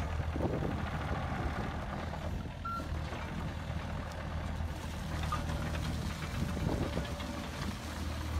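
2012 Hitachi ZX27U mini excavator's 27-horsepower diesel engine running steadily while the machine swings, with a short high beep about two and a half seconds in.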